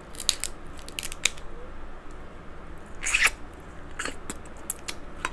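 King crab leg shells being cracked open: a series of sharp cracks and snaps, the longest and loudest about three seconds in.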